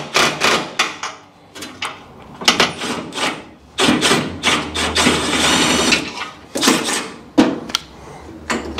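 Hand wrench working a bolt on a car's front end: a run of sharp metallic clicks and knocks, with a longer stretch of scraping rattle about halfway through.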